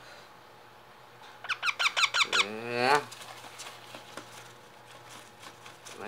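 Baby Indian ringneck parakeet chick calling: a quick run of about eight short, high, squeaky chirps about a second and a half in, followed by a lower call that rises in pitch. Faint light clicks follow.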